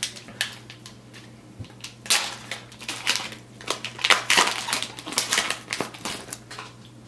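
A foil Upper Deck hockey card pack wrapper crinkling and being torn open by hand, in a run of short crackly bursts, with a faint low hum underneath.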